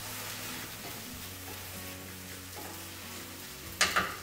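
Sliced mushrooms and onions sizzling in a skillet over a gas flame as a wooden spatula stirs them, with a short, loud clatter near the end.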